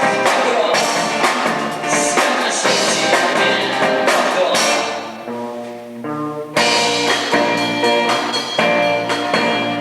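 Live band playing an instrumental passage with a drum kit. About five seconds in the drums drop away under a held chord, and the full band comes back in sharply about a second and a half later.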